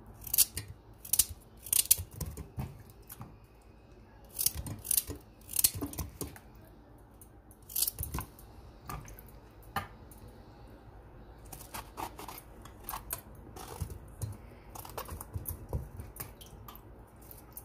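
Kitchen knife cutting raw vegetables into pieces: short crisp cuts in irregular clusters, with pauses between them.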